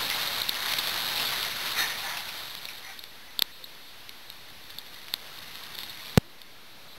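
Steady hiss of rain falling on trees and foliage, dropping to a quieter hiss about three seconds in. A few sharp clicks follow, the loudest near the end.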